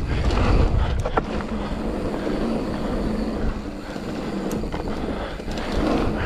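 Electric mountain bike riding down a dry dirt and gravel trail: steady tyre rumble over the loose surface and wind buffeting the camera microphone, with a sharp rattle about a second in.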